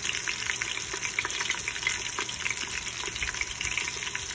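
Panko-battered geoduck strips deep-frying in hot oil, a steady sizzle thick with small crackling pops.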